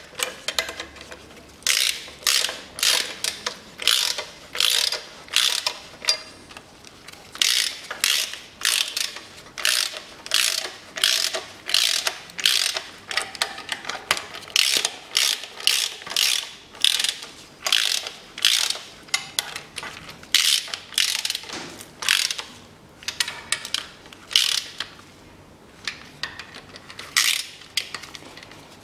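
Hand socket ratchet clicking in repeated short bursts, about two a second with a few brief pauses, as nuts on the engine's exhaust manifold are run down.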